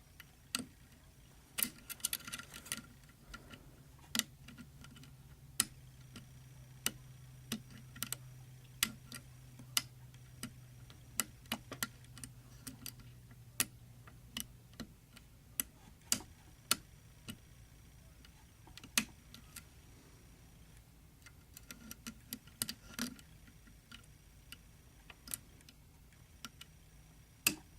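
Small irregular metal clicks and taps, roughly one or two a second, from a hook pick lifting the stiff spring-loaded levers of a seven-lever safe lock held under tension by a tension wrench.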